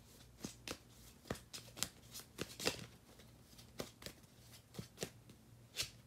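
A tarot deck being shuffled by hand: an irregular run of soft card snaps and flicks, two or three a second.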